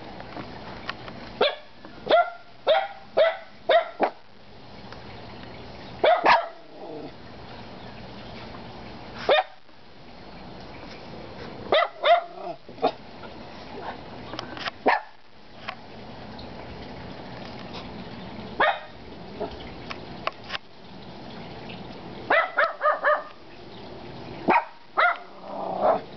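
Dogs barking in short, sharp bursts, several quick barks at a time with pauses between, over a steady background hiss.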